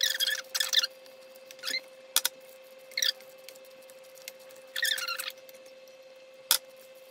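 Spoon stirring cheese into cooked macaroni in the Instant Pot's stainless steel inner pot: short squeaky scrapes against the pot, three of them, with two sharp knocks in between. A faint steady hum runs underneath.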